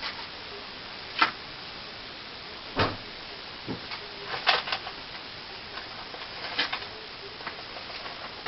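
A few light knocks and clicks of model-kit parts and packaging being handled and set down, scattered over a steady background hiss.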